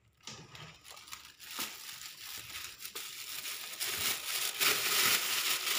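Thin plastic bag crinkling as it is picked up and handled, with a few light clicks, growing much louder in the last couple of seconds.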